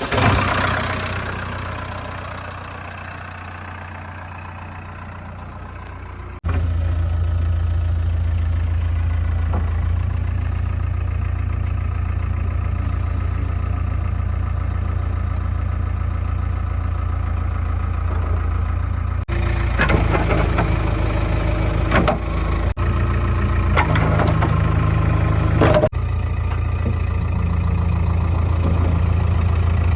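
Heavy diesel machinery engine idling steadily, heard in several spliced clips. A stretch of louder clattering with sharp knocks comes about twenty seconds in.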